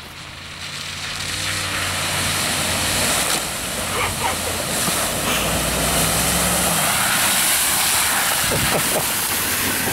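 Pickup truck driving through a deep puddle on a dirt track, its engine getting louder for the first few seconds as it comes closer. Then a steady loud rush of spraying, splashing water as the truck ploughs through and passes close by.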